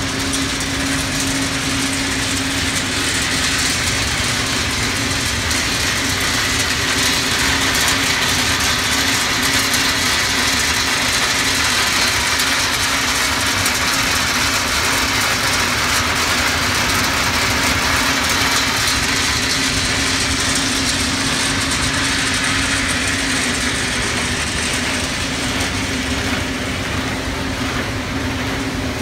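Chewy candy production line machinery running: a steady hum under an even hiss that holds without a break.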